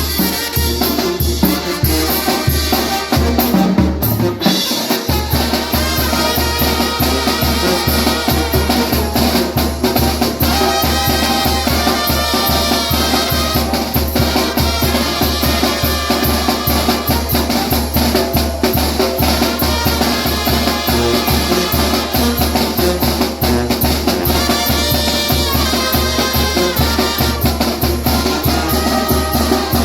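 Salsa-style Latin dance music: trumpet over a drum kit and a steady pulsing bass beat, with a short break in the bass about four seconds in.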